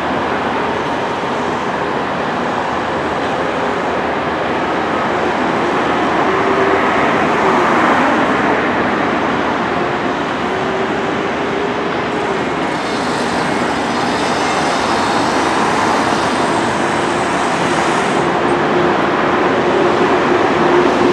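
Steady running noise of a moving train, with faint wavering tones coming and going over it.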